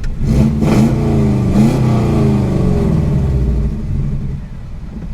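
Turbocharged car engine with a large open exhaust, revving up and down in the first couple of seconds, then settling lower and quieter about four seconds in.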